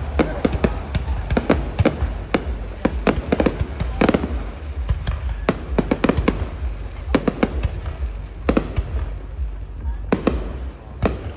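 Aerial fireworks bursting in a rapid, irregular barrage of sharp bangs and crackles, several a second, over a steady low rumble.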